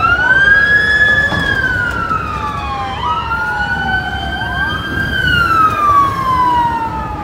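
Emergency vehicle siren wailing, rising quickly in pitch, holding, then falling slowly, repeating about every three seconds, with a second wail overlapping it. Steady low traffic noise underneath.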